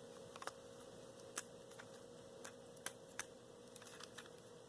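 Faint, irregular clicks and taps of small plastic toy parts being handled, about a dozen in all, over a faint steady hum.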